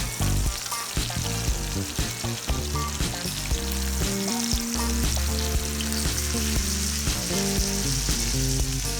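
Flour-dredged chicken cutlets frying in hot olive oil in a sauté pan, with a steady sizzle.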